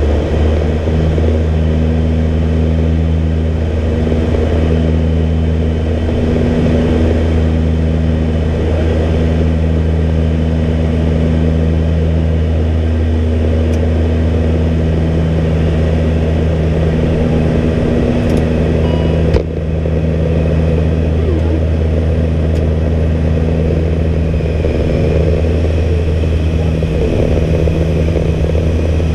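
Steady drone of an ATR 42-320's Pratt & Whitney PW121 turboprops and propellers heard inside the cockpit, a deep even hum with a few steady tones above it. A single sharp click about two-thirds of the way through.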